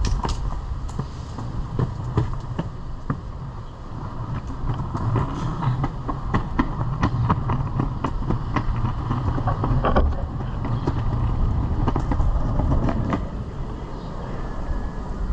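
Pantheon Trip longboard rolling on pavement: a steady low rumble from the wheels with frequent irregular sharp clicks and knocks.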